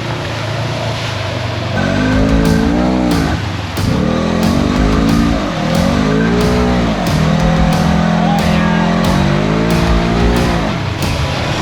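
Off-road vehicle engine revving hard, its pitch climbing and dropping several times and holding steady for a while in the middle, under music with a steady beat.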